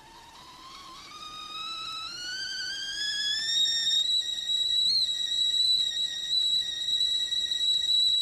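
Whistling kettle coming to the boil: the steam whistle starts faint and low, rises in pitch and grows louder over about four seconds, then jumps to a steady shrill whistle at full boil.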